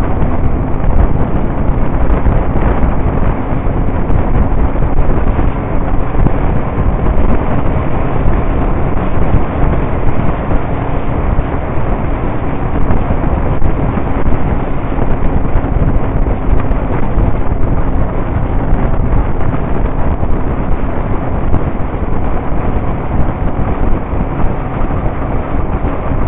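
Steady wind rush buffeting the microphone of a camera on a moving motorcycle, with the motorcycle's engine running steadily underneath at cruising speed.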